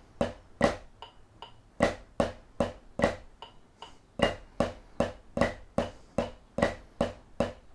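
Snare drum played slowly as the Swiss Army triplet rudiment, with flams added: even triplet strokes at about two and a half a second, some notes louder than the rest.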